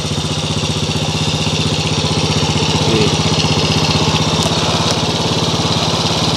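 Honda C70 step-through motorcycle's single-cylinder four-stroke engine idling steadily.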